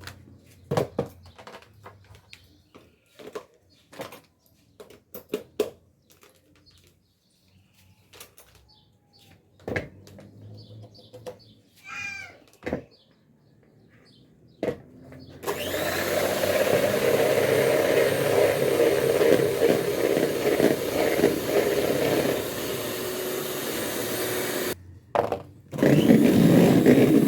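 Electric mixer beating egg whites towards stiff peaks: it switches on about halfway through and runs steadily, stops for a moment near the end and starts again. Before it, scattered knocks and clatter of bowls and utensils.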